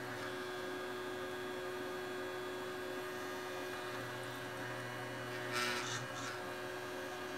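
Small cooling fan of a 12 V 200 W switch-mode power supply running with a steady hum, the repaired supply powered up and working. About five and a half seconds in there is a brief scrape.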